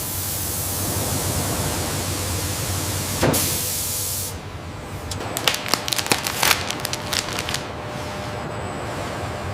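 Factory machinery: a loud hiss of about four seconds, with a sharp click near its end, then a quick run of sharp clicks and ticks, over a steady low hum.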